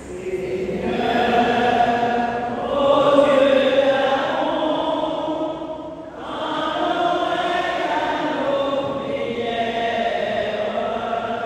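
Congregation singing a short chanted refrain together in long held notes, the sung response of the Prayer of the Faithful after an intention. The refrain comes in three phrases, with breaks about two and a half and six seconds in, and it fades near the end.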